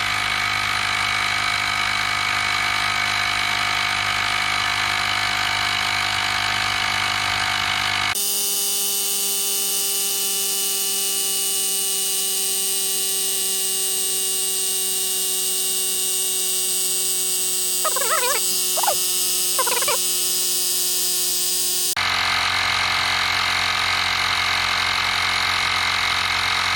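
EAFC cordless tire inflator running steadily, its small electric motor and piston pump humming and whining as it inflates a nearly flat bicycle tire. The pitch mix of the hum changes abruptly about eight seconds in and changes back about fourteen seconds later.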